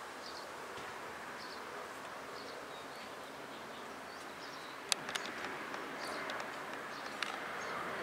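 Outdoor nature ambience: a small bird chirps short, high notes about once a second over a steady background hiss. Sharp clicks come about five seconds in and again near seven.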